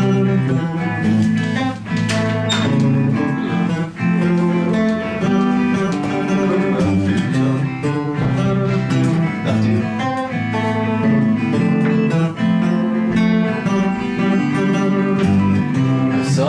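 Two guitars playing together, a rhythm part of chords under a lead guitar line.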